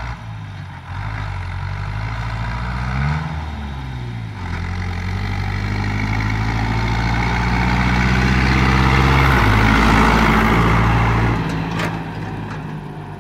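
John Deere 2040 tractor's diesel engine running under load as it pulls two trailers of straw bales past, its note shifting about three seconds in. It grows louder as it comes close, then drops in pitch and fades as it moves away near the end.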